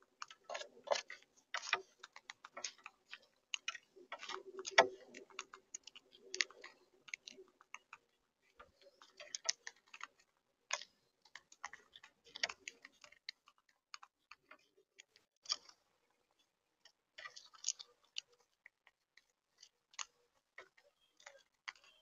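Monk parakeets cracking seeds with their beaks and pecking at a seed-filled feeder tray: irregular sharp clicks and crunches that come in clusters with short pauses.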